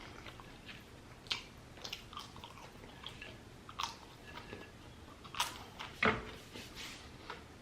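A person chewing crispy fried food close to the microphone, with irregular crunches and mouth sounds, a few louder bites standing out.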